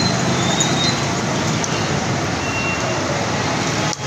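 Steady street traffic noise, with a couple of short, faint horn toots.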